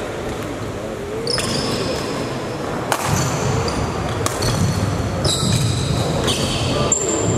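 Badminton play on a hall court: two sharp racket hits on the shuttlecock just over a second apart, among repeated high squeaks.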